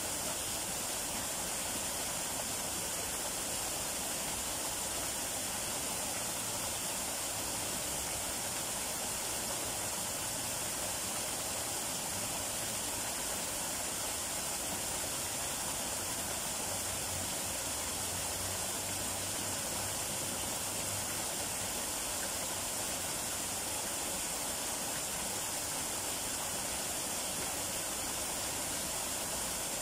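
Small waterfall pouring steadily down a rock face and splashing into the pool at its foot: an even, unbroken rush of falling water.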